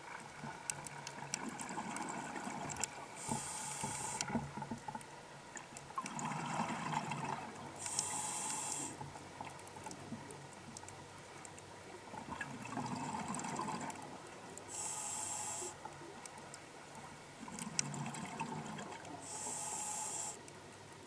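Scuba diver breathing through an open-circuit regulator underwater. About four breaths, each a bubbling exhale followed by a short hissing draw on the regulator, roughly every five to six seconds.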